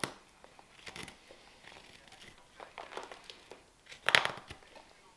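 Hook knife cutting shavings from the inside of a green-wood spoon bowl: a series of short, scraping slicing strokes, the loudest about four seconds in.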